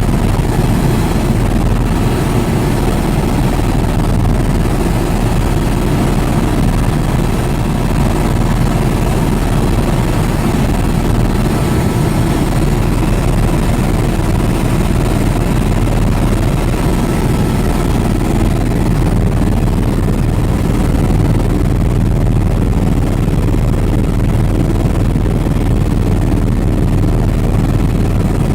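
Helicopter in flight heard from aboard: loud, steady rotor and engine noise with a fast, even chop.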